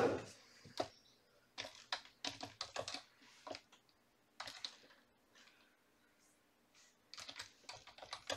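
Computer keyboard being typed on: runs of sharp keystroke clicks with short pauses between words.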